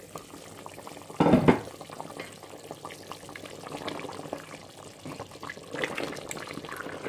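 Water running in a kitchen, with one loud knock just over a second in and light clatter throughout.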